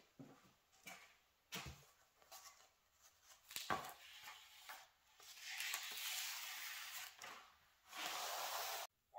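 A hardcover notebook set down on a wooden workbench with a few light knocks and taps, then a couple of seconds of paper rustling as its pages are flipped through. A second, shorter rustle as the open pages are pressed flat by hand cuts off suddenly near the end.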